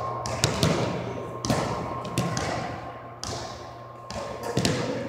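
Basketball thudding on a hardwood gym floor, several irregular bounces and knocks that echo in the large hall.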